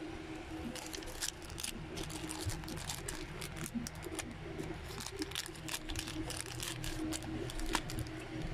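Clear plastic packaging crinkling and rustling as it is handled, with many short, sharp crackles coming irregularly for most of the time.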